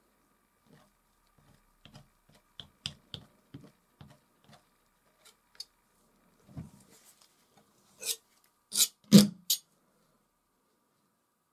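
Steel palette knife handling: a scatter of light taps and clicks, then a dull knock, and near the end four sharper, louder clicks close together.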